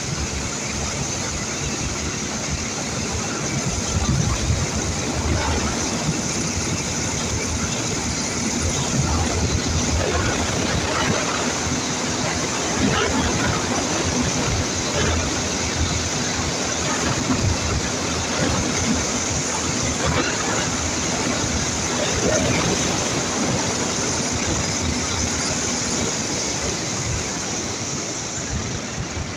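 Ural motorcycle's flat-twin engine running steadily at road speed, under heavy wind rush on the microphone, easing off slightly near the end.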